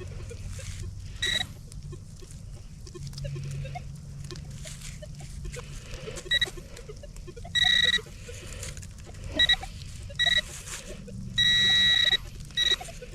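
Metal detector beeping at a steady high pitch while being worked over a buried target: a short beep about a second in, then a run of short beeps and one longer held tone from about halfway on. Soft scraping and rustling between the beeps.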